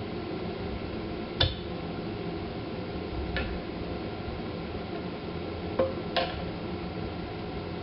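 Four short, sharp metallic clinks of small parts or tools being handled, spread out over several seconds, over a steady background hum.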